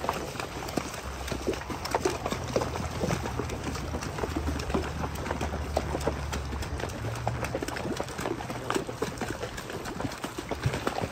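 Horses' hooves splashing through a shallow creek and knocking on the stones of its bed as the horses walk, in an irregular run of splashes and clacks. A low rumble sits under the splashes from about a second in until about seven seconds in.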